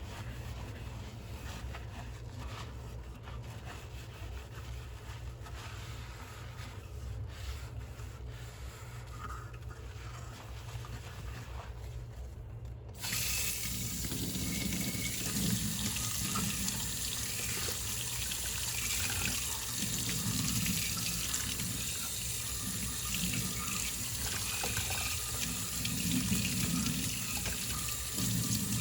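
A kitchen faucet comes on suddenly a little under halfway through, and water runs steadily into the sink, splashing unevenly. Before that there is only a low hum and a few faint ticks.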